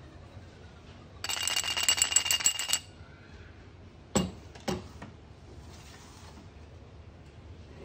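Metal espresso portafilter and dosing ring being handled: a rapid metallic rattle with a bright ringing tone for about a second and a half, then two knocks about half a second apart as it is set down on the counter.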